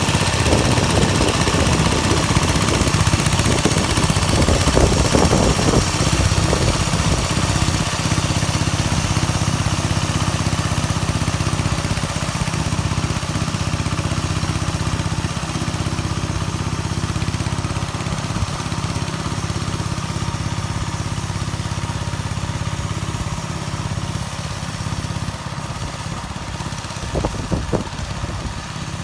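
Engine of a homemade motor-tractor built from a walk-behind tractor, running steadily while its rotary tiller works the soil. A few sharp knocks come about five seconds in and again near the end, and the engine grows gradually quieter over the second half.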